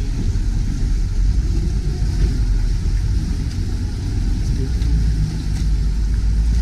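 Steady low rumble of motorboat engines on a busy canal, heard from a gondola, with faint scattered clicks above it.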